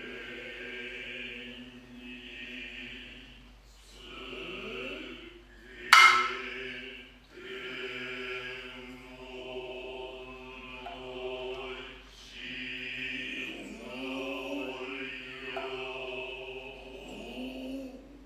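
Noh chorus chanting (utai) in unison, holding long, steady tones. A single sharp, loud tsuzumi hand-drum stroke cracks out about six seconds in.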